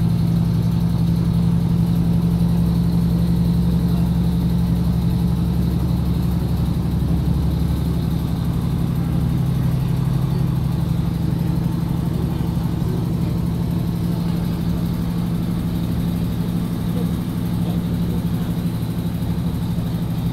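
Steady low drone of a diesel train running at speed, heard from inside the carriage, easing off slightly near the end.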